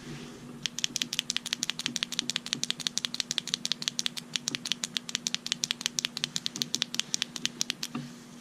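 FOURSEVENS Preon P2 penlight's rear push button clicked on and off as fast as possible, a rapid even run of sharp clicks, about eight or nine a second, starting about half a second in and stopping near the end. It is the rapid-press sequence meant to open the light's configuration menu.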